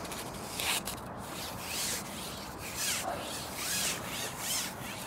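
Carbon fishing pole being shipped out hand over hand, its sections rubbing against the angler's hands as they slide, giving a run of rubbing, hissing strokes about once a second.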